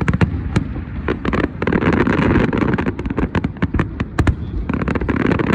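Fireworks going off in rapid succession: many sharp bangs and cracks, with two denser crackling stretches, about two seconds in and near the end.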